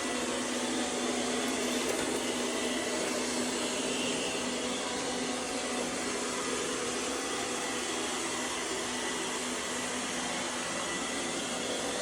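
ONSON BR151 robot vacuum running in zigzag cleaning mode: a steady motor whir with a low hum under it, a little loud for a machine sold as quiet.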